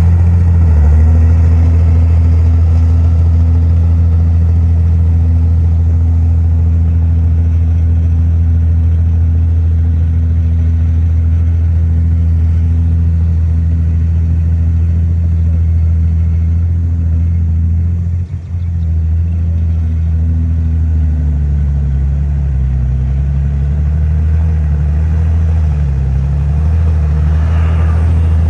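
Heavy diesel engine of earthmoving machinery running loud and steady, with a brief dip about two-thirds of the way through, after which the engine speed rises and falls as it works.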